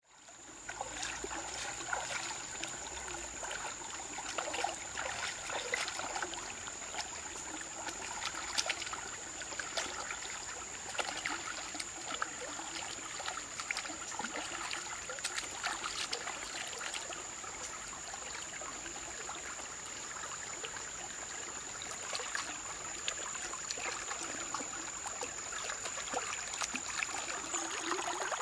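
Flowing stream water, with a steady high-pitched tone over it and many small scattered clicks and rustles.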